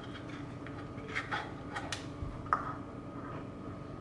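Light scattered taps and clicks, the sharpest about two and a half seconds in, as a plastic measuring cup is handled and tipped over a stainless steel stand-mixer bowl to pour corn syrup, over a steady faint background hum.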